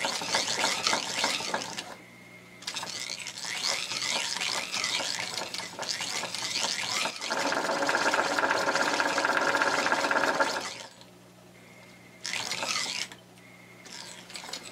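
Techsew 1460 industrial sewing machine stitching through a strap of webbing, driven through a 3:1 speed reducer: it sews in several runs of rapid needle strokes separated by short pauses. The longest run, in the middle, carries a steady whine, and a low motor hum shows during the pauses.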